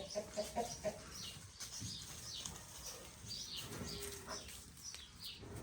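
Chickens clucking, a quick run of short notes in the first second, with short high chirps repeating through the rest.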